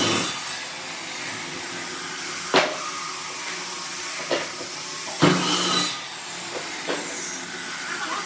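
Steady hissing noise of a running workshop machine, broken by sharp knocks about two and a half seconds in and again about five seconds in, with a few lighter taps.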